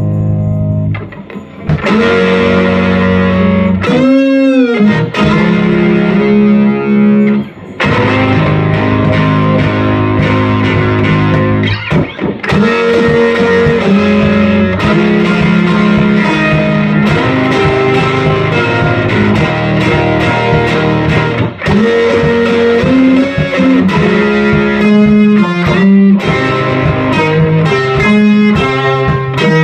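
Stratocaster-style electric guitar playing a riff through an amplifier, with string bends that push notes up and back down, and a couple of short breaks between phrases early on.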